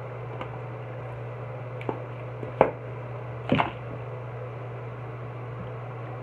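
A guinea pig being washed in a bathroom sink: a few short, sharp handling sounds in the first four seconds over a steady low hum.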